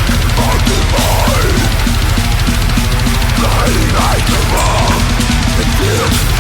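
Brutal death metal band playing at full intensity: distorted guitars and a pounding drum kit in a loud, dense wall of sound, with high sliding pitches bending over it.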